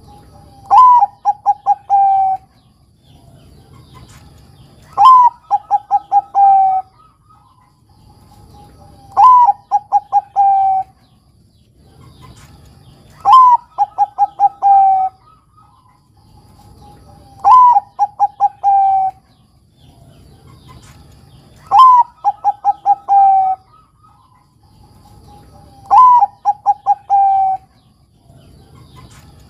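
Zebra dove (perkutut, Bangkok-bred singing type) cooing its song seven times, about every four seconds. Each phrase is a rising opening note, a quick run of short clipped notes, and a longer held lower note to finish.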